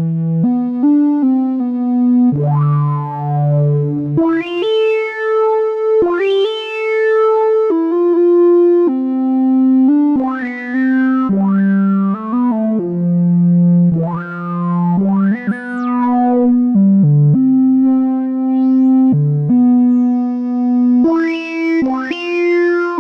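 Wavetable synthesizer playing a slow melodic line of held notes, each with a bright, buzzy tone rich in overtones; some notes open with a short pitch swoop.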